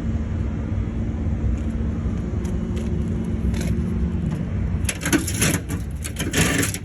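Vehicle engine running steadily with a low rumble and a steady hum. From about five seconds in, a run of sharp crunching and clattering noises comes over it.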